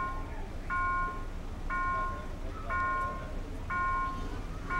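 Level-crossing warning bell ringing: a steady ringing tone about half a second long, repeating about once a second, over low traffic rumble.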